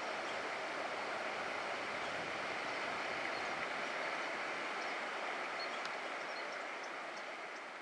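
Shallow river water running over a gravel riffle: a steady rushing hiss that slowly fades out near the end.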